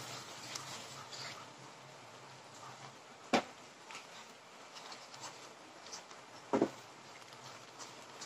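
Wooden slotted spatula stirring and scraping a thick masala paste frying in a non-stick pan, over a faint steady hiss. Small ticks, and three sharp knocks of the spatula on the pan, at the start, about three seconds in, and near six and a half seconds; the middle one is the loudest.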